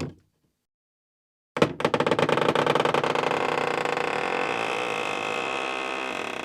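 Old wooden door hinge creaking in one long, slow, heavy groan with rapid stick-slip chatter, starting sharply about a second and a half in. The very start holds the fading end of the previous sound.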